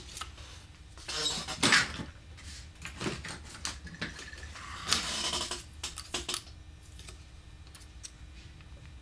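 Light handling noises at a workbench: scattered rustles, taps and clicks as a roll of Teflon tape and small tools are picked up and set down, with a longer scratchy rustle about five seconds in.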